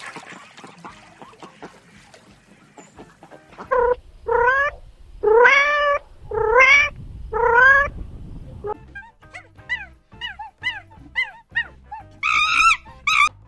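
A series of animal calls. Five long calls rise in pitch, then comes a quick run of about seven shorter, higher cries, and two loud, high calls near the end.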